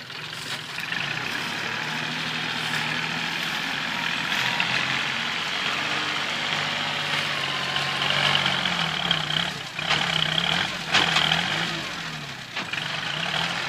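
Kubota L3608 tractor's diesel engine running under load as it pushes soil with its front blade. The engine note rises and falls several times in the second half, briefly joined by a high whine.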